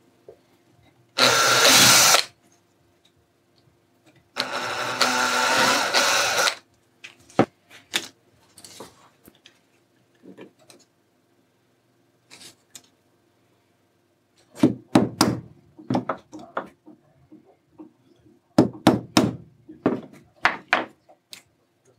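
Cordless drill running in two bursts, a short one and then a longer one a few seconds later, as it bores into a thin plastic piece over a wooden block. Then scattered clicks of hand-tool work and two clusters of sharp knocks in the second half.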